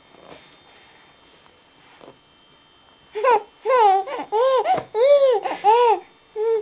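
Baby cooing and laughing: after about three seconds of quiet, a quick string of short, high-pitched coos, each rising and falling in pitch.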